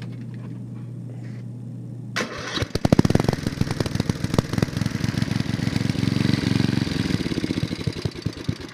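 A 10 hp Tecumseh single-cylinder engine on a BCS two-wheel tractor being started: after about two seconds it is cranked, catches about three seconds in with uneven firing, runs up fast, then settles to an even idle near the end.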